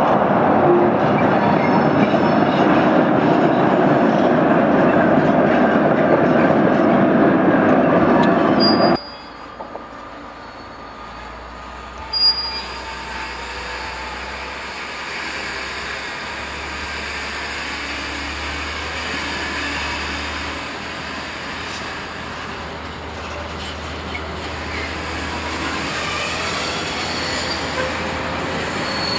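Freight train of gas tank wagons rolling past behind an electric locomotive, a loud steady rumble of wheels on rail that cuts off suddenly about nine seconds in. After that, much quieter, a diesel shunting locomotive moving a string of container flat wagons: a low steady engine hum with faint high wheel squeal and a single brief knock.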